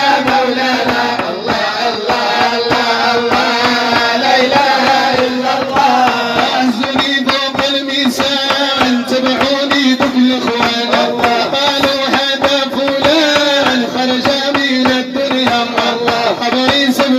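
Background music in a Middle Eastern style: a steady hand-drum beat under a melodic line, with no sung words.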